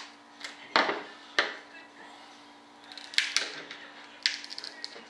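Small hand tool scraping and knocking against the edge of a mold box: four sharp knocks, the last two each followed by a quick run of light clicks and scrapes.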